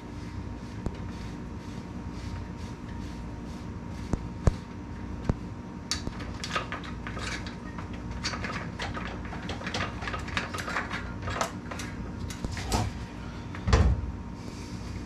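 Mountain bike front wheel being taken out of the fork: scattered metallic clicks and rattles as the axle is worked loose, busiest in the middle, then a heavier knock near the end as the wheel drops free of the fork.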